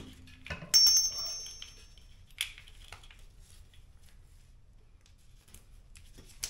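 A metal part or tool clinks once with a short high ringing, followed by a lighter tap about a second and a half later, then faint handling noise during work on a car's front strut and shock absorber.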